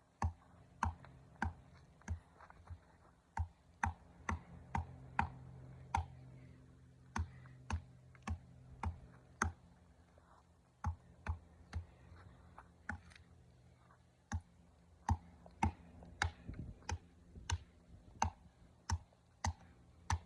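A hammer striking a tree trunk over and over, about one and a half to two sharp knocks a second, with two short breaks along the way.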